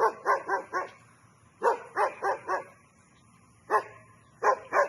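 A dog barking fiercely in quick runs of three or four barks, with a lone bark between the runs.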